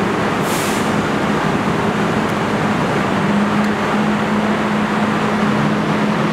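R42 subway train standing at the platform, its equipment humming steadily, with a short burst of hissing air about half a second in.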